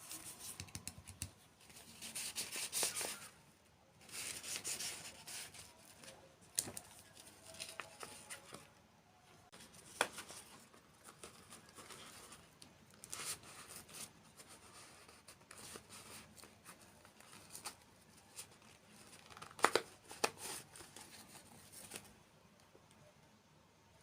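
Close-up handling sounds: crinkling and tearing of packaging in irregular bursts, with a few sharp clicks and taps.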